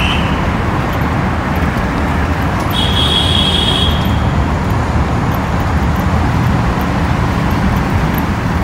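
Steady road and traffic noise inside a road tunnel, heard from the open back of a moving pickup truck. A brief high-pitched tone comes in about three seconds in.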